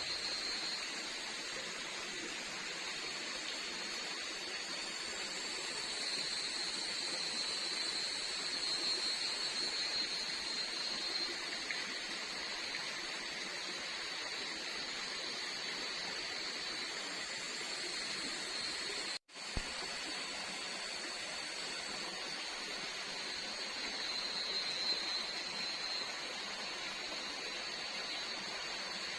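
Night forest ambience: a steady high-pitched insect chorus over an even hiss. It cuts out for an instant about two-thirds of the way through.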